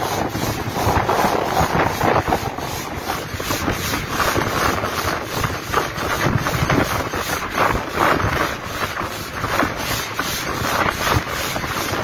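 Steam locomotive running along the line, heard from its cab, with wind rushing over the microphone; a faint even pulse comes about three times a second.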